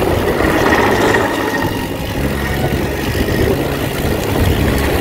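Wind rushing over the camera microphone and a mountain bike's tyres rolling over dry leaves and dirt on a fast downhill singletrack run, a steady loud rumbling noise.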